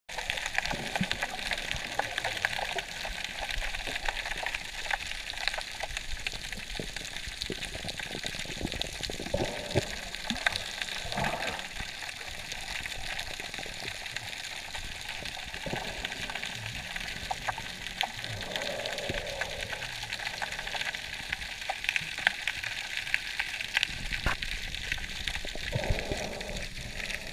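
Underwater ambience picked up by a submerged camera: a steady fizzing hiss with scattered crackles and clicks, and a few muffled low swells now and then.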